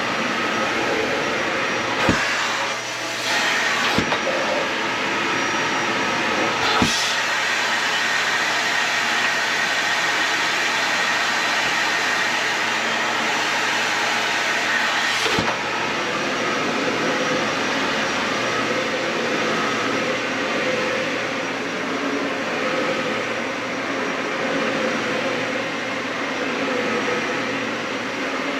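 Dyson Ball Animal 3 upright vacuum cleaner running steadily on carpet, with a few sharp knocks about two, four, seven and fifteen seconds in.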